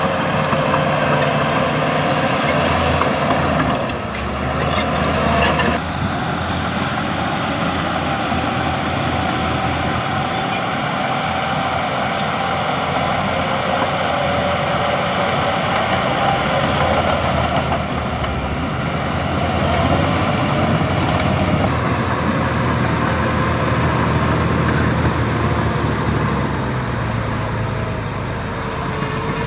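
Heavy diesel engine of earthmoving machinery running steadily under work, its pitch rising near the end.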